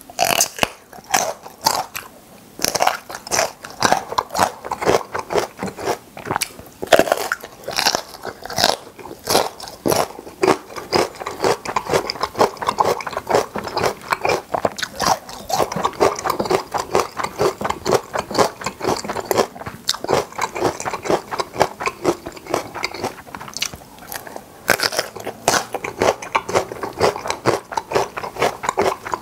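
Close-miked crunching and chewing of crisp food: many quick, sharp crunches in rapid succession as a person bites and chews with the mouth close to the microphone.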